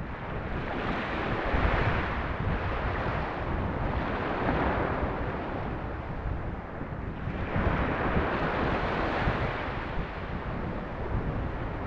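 Sea waves washing in swells every few seconds, with wind buffeting the microphone underneath.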